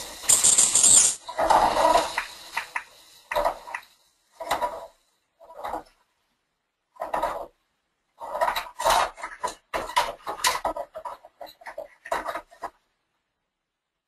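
Small toy figures knocking and clattering on a puppet-show hill stage, in irregular short bursts that stop near the end.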